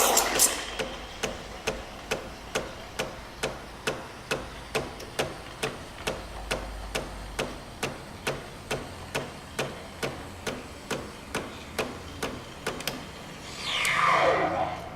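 Espresso machine's steam function running. A short hiss at the start, then steady rhythmic clicking from the machine, about three clicks a second. Near the end another swell of hissing, as the steam works in the milk.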